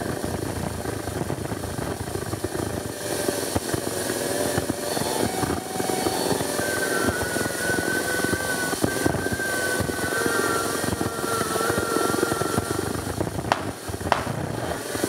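Noisy, crackling soundtrack of old worn film: a dense, fluttering rumble and hiss, with faint wavering tones in the middle and two sharp clicks near the end.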